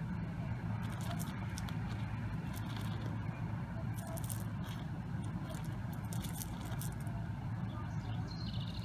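Steady low background hum with faint, scattered high clicks. Near the end, a rapid high-pitched trill starts.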